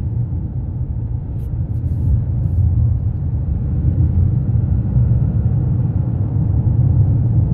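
Steady low rumble of a car driving, road and engine noise heard from inside the cabin, growing a little louder about three seconds in.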